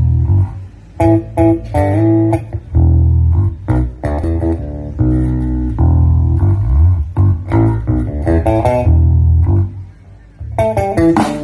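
Bass-heavy guitar music played through a pro audio loudspeaker system: deep plucked bass-guitar notes under guitar phrases that stop and start, dropping away briefly about ten seconds in.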